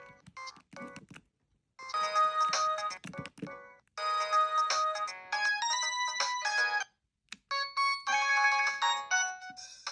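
Samsung SGH-E890 mobile phone playing polyphonic ringtone and notification melodies from its speaker. A few short blips come first, then several short melodic phrases with brief pauses between them.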